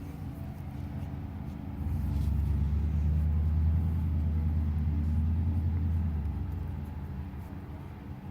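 A low engine rumble that swells about two seconds in, holds, then fades away after about six seconds, like a motor vehicle passing.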